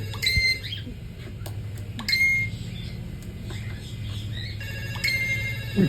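A bird mimicking a phone messenger notification tone: a short electronic-sounding chirp, given about three times.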